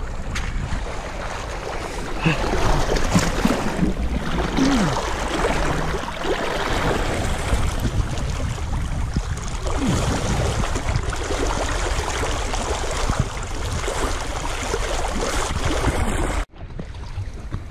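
Sea water rushing and splashing around a camera dragged through the water by a person towed behind a sailboat, a steady churning hiss. It cuts off suddenly near the end and gives way to quieter water sounds.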